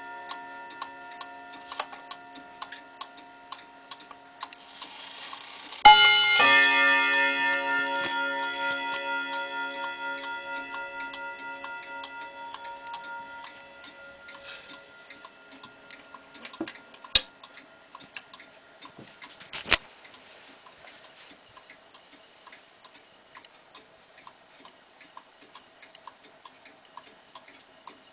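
Pendulum chiming wall clock ticking steadily. About six seconds in it strikes once: a loud ring of several tones at once that dies away slowly over about eight seconds. Two sharper clicks come later.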